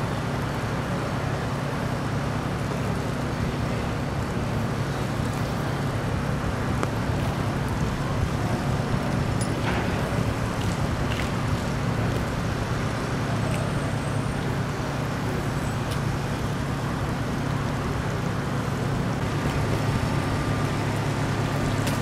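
Vehicle engine idling, a steady low hum, with a few faint clicks around ten to eleven seconds in.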